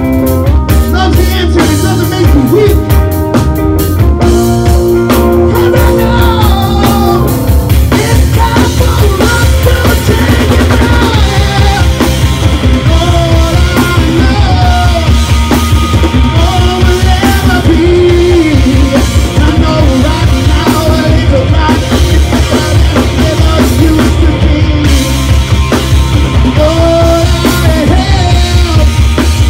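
Rock band playing live: a man singing over electric guitar, bass guitar and a drum kit.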